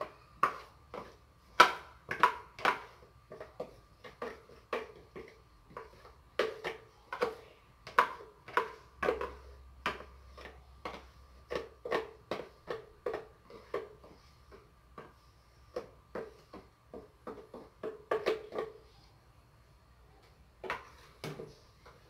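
A spoon knocking and scraping against a container as the last cake batter is worked out, irregular clinks and knocks about two or three a second, pausing briefly near the end.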